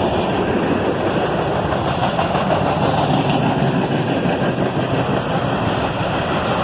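Cars of a CSX freight train rolling past, a steady noise of wheels on rail.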